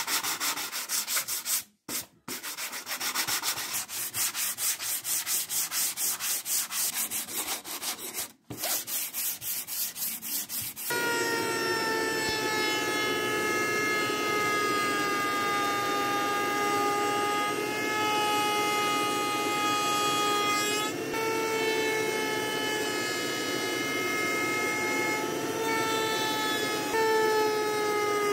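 A sander scrubbing over a thin plywood panel in quick rhythmic strokes, broken twice by short gaps. About eleven seconds in it gives way abruptly to a woodworking machine (table saw or router table) running with a steady pitched whine, the pitch dipping slightly a couple of times as a solid-wood panel is fed past the cutter to cut its edge.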